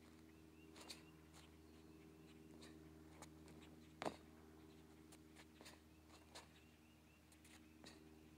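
Near silence over a steady low hum, broken by a few faint sharp snaps from the movements of a taekwon-do form, uniform cracking and feet landing on the court. The loudest snap comes about four seconds in.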